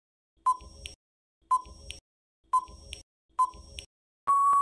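Quiz countdown timer sound effect: four short electronic beeps about a second apart, each followed by faint ticking, then a longer steady beep near the end that marks the time running out.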